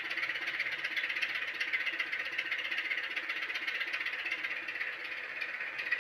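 Model Class 27 diesel locomotive's DCC sound decoder playing a Sulzer diesel engine running steadily through a small onboard speaker. The sound is thin, with hardly any bass.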